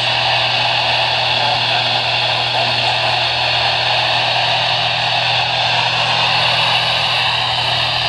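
Steady static hiss from a handheld NOAA weather radio's speaker, with a low hum underneath.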